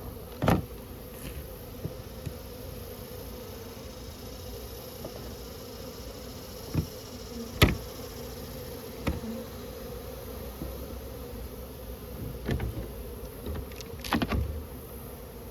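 Honeybees buzzing steadily in a steady hum. Several short, sharp knocks and clicks from handling come through it, the loudest about halfway through.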